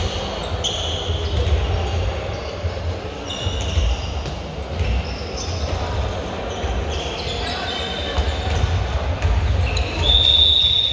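Handball game sounds in a large hall with reverberation: the ball bouncing on the wooden court, athletic shoes squeaking, and players' voices calling out. Short high squeaks come and go, with a longer one about ten seconds in.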